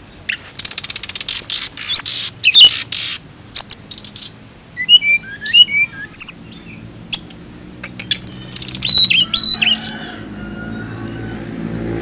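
Hill blue flycatcher (tledekan gunung) singing: it opens with fast, dry rattling trills, then moves to clear whistled notes that slide up and down in pitch.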